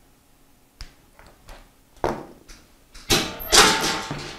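Diagonal cutters clicking as they snip wire. Then come a sharp knock and a few loud clatters with a short metallic ring, as tools and cut-off parts are put down on a tabletop.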